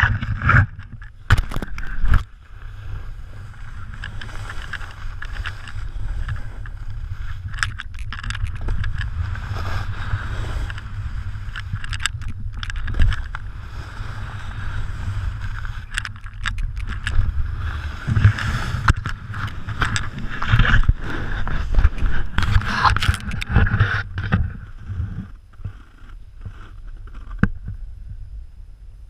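Wind buffeting an action camera's microphone, with a snowboard's base and edges scraping and chattering over hard-packed snow during a run. It eases off near the end.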